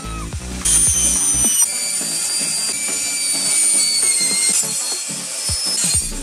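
Small handheld electric power saw cutting through a plywood sheet, its motor giving a high-pitched whine that starts abruptly under a second in and sags slightly as the blade loads. Background music with a steady beat runs underneath.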